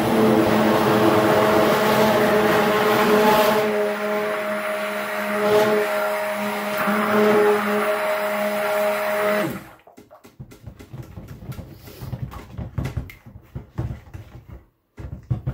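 Stick blender running in a plastic bowl of melted soap oils and goat milk: a steady motor whine that cuts off suddenly about nine and a half seconds in. A few light knocks and handling sounds follow.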